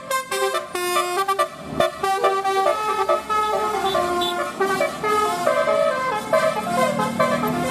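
Bus 'telolet' multi-tone horn playing a tune, several horn tones sounding together and stepping quickly from note to note, the notes slowing and lengthening in the second half. A single sharp knock about two seconds in.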